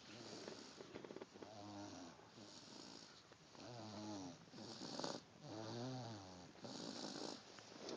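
Slow, regular snoring, about one breath every two seconds. Each breath is a wavering, pitched snore followed by a breathy hiss.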